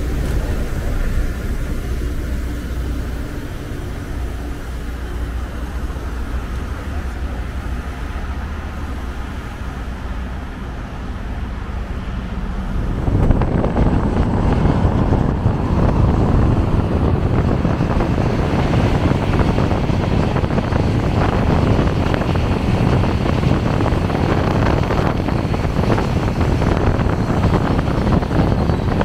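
Loram RG-401 rail grinder train running alongside a moving car, first as a low steady hum. About 13 seconds in, a much louder rushing noise comes in suddenly and holds.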